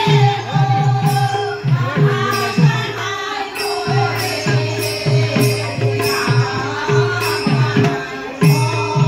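Live accompanying music: a hand drum played in fast, regular strokes, its bass notes sliding down in pitch, over a steady held note.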